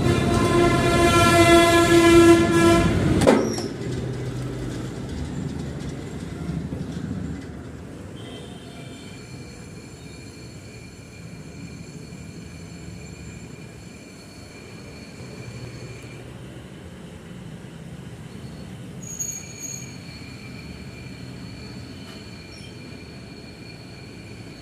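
A loud horn blast, one held note lasting about three seconds that cuts off abruptly, followed by a quieter steady background rumble.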